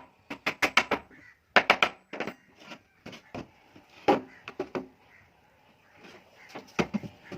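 Quick runs of sharp knocks or taps, three or four close together, repeated several times with short pauses between.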